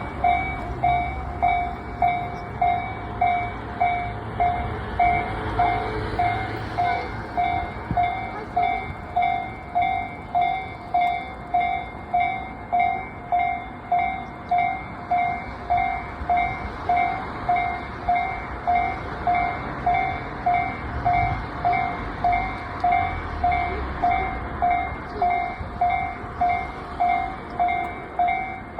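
Japanese railway level-crossing warning bell ringing its repeated 'kan-kan' tone, about one and a half strikes a second, the signal that a train is approaching and the barriers are down. A low rumble comes and goes beneath it, swelling over the first several seconds and again about twenty seconds in.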